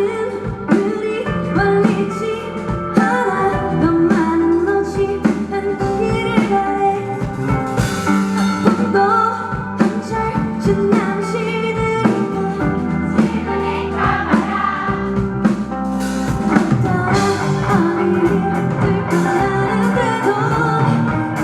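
Live rock band playing with a woman singing lead: drum kit, bass, electric guitar and keyboard under a sung melody.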